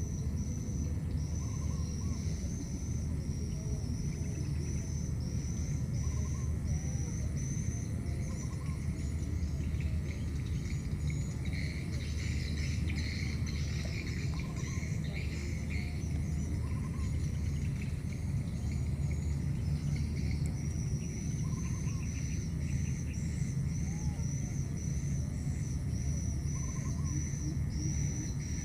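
Outdoor insect chorus: a steady run of repeated high chirps throughout, joined by a denser, slightly lower chatter for a few seconds in the middle, over a continuous low rumble.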